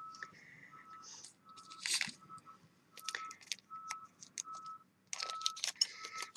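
Short electronic beeps on one steady pitch, repeating evenly about four times every three seconds, with small sharp clicks and scrapes in between.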